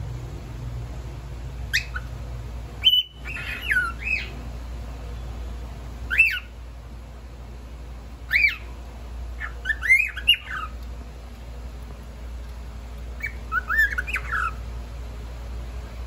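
Grey cockatiel giving short, shrill whistled calls that sweep sharply in pitch, some singly and some in quick runs of two to four. They come in about six bouts, with a longer pause about two-thirds of the way through.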